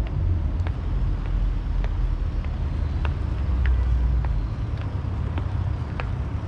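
Steady low rumble of passing road traffic, with scattered light clicks over it.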